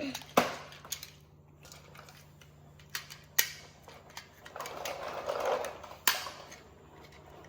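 Pieces of a magnetic transforming toy clicking and snapping together as they are handled, with a few sharp snaps and a stretch of rustling handling noise around five seconds in.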